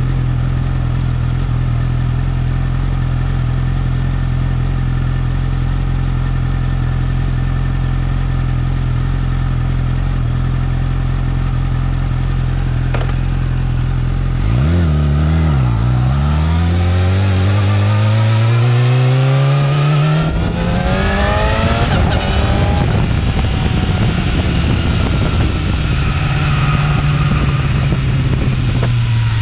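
Yamaha R6 inline-four on its stock exhaust, idling steadily, then blipped once about halfway. The revs then climb for about five seconds, drop, climb again and fall back.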